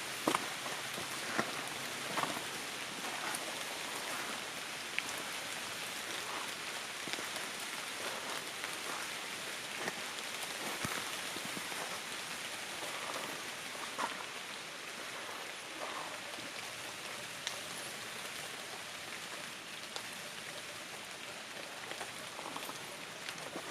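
Light rain falling on tree leaves: a steady hiss with many scattered, louder individual drops.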